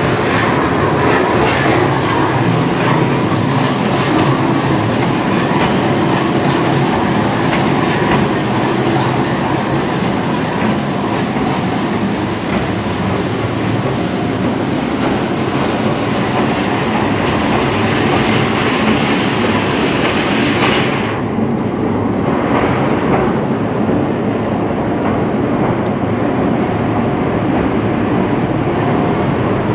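Puffed-snack production line machinery running: a loud, steady mechanical rattle and rumble, with corn puffs tumbling against a rotating stainless-steel drum. About two-thirds of the way through, the upper hiss and rattle drop away, leaving a lower steady machine drone.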